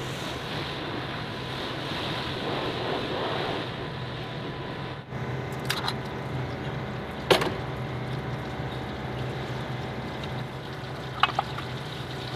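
Sharp metallic clinks of hand tools and the water pump against the engine block as the pump is unbolted and worked loose, the loudest about seven seconds in, over a steady background hum.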